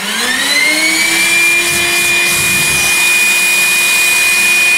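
Wet/dry shop vacuum starting up, its whine rising over about a second and then holding a steady pitch, while a cordless drill bores a pilot hole into a wooden wall stud.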